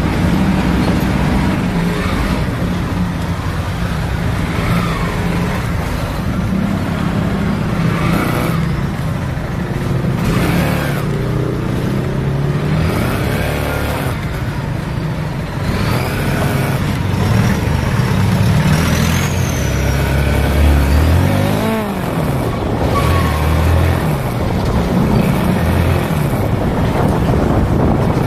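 Motorcycle engine heard from the rider's seat while riding, its pitch rising and falling as the bike accelerates, changes gear and slows, with other road traffic around it.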